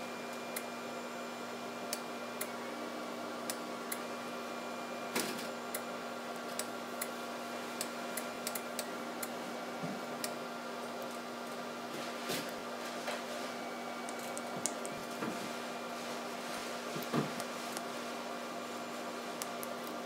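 Steady electrical hum made of several held tones over a faint hiss, from powered bench electronics, with scattered faint clicks and taps while the sensor shaft is turned by hand.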